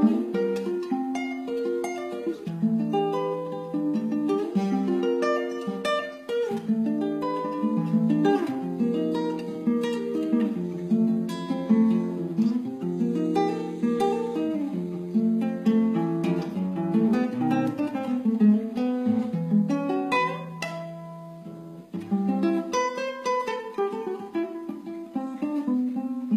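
Solo nylon-string guitar playing a jazz ballad, plucked chords with a melody line over them. It softens briefly about three quarters of the way through, then picks up again.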